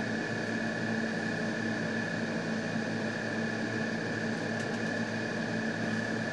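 Steady mechanical hum and hiss of room equipment, with a constant high whine and a low drone, and a few faint ticks a little after the middle.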